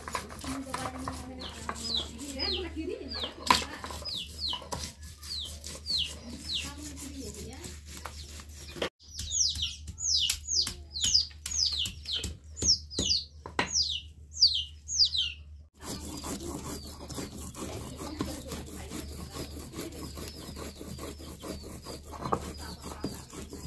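Chicks peeping in runs of short falling notes, about two a second, in two spells, the second louder. Under them come sharp knocks of a knife and then a stone pounding garlic and chillies on a wooden block.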